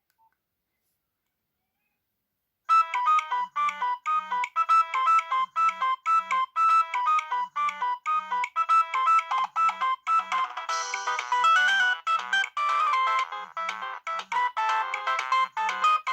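Nokia 6030 mobile phone playing one of its built-in ringtones: a brisk synthesized melody with chords over a repeating bass line, starting nearly three seconds in after silence.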